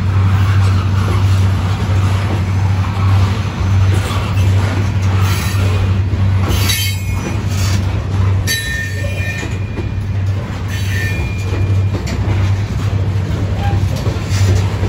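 Covered hopper cars of a freight train rolling past close by: a steady rumble of steel wheels on rail, with a few short, high wheel squeals around the middle.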